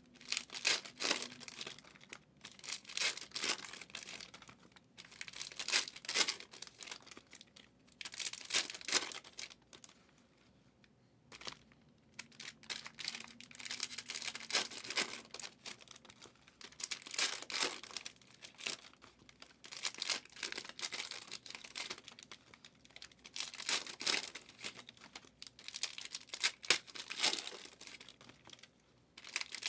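Foil wrappers of Prizm football hobby card packs crinkling and tearing as the packs are ripped open and handled, in repeated bursts with a short lull about ten seconds in.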